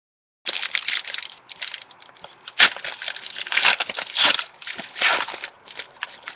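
Foil wrapper of a 2011 Panini Certified football card pack crinkling and tearing as it is opened by hand, a run of irregular sharp crackles starting about half a second in.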